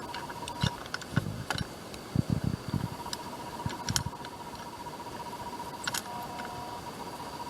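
Scattered light clicks and knocks of small metal parts (intake manifold bolts, nuts and brackets) being handled and set in place, more of them in the first half, over a faint steady high tone.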